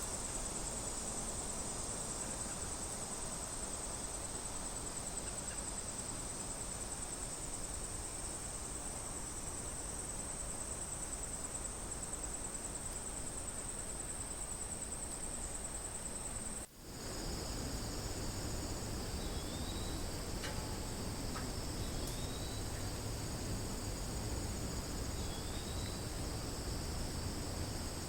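Cicadas buzzing in a steady, high-pitched drone. About two thirds of the way through, the sound cuts to another recording with a lower buzz, and a short rising chirp repeats about every three seconds.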